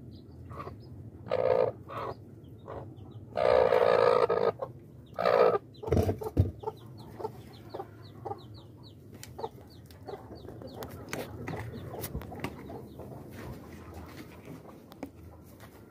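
A broody hen gives four loud squawks in the first six seconds, the longest about a second. Chicks peep in short, high cheeps about three times a second, and a low knock from the metal bucket comes around six seconds in.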